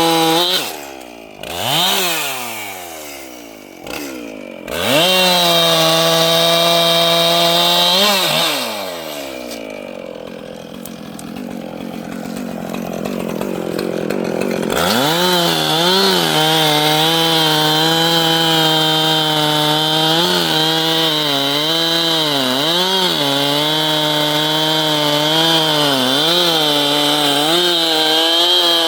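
Two-stroke chainsaw revved at full throttle and let back several times in the first eight seconds, then a rougher, quieter stretch, and from about halfway a long full-throttle run whose pitch dips again and again as the chain loads up in the cut.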